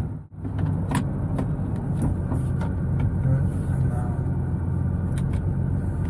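Nissan GT-R's twin-turbo V6 idling steadily, heard from inside the cabin, with a few sharp clicks over it. The sound drops out for a moment right at the start.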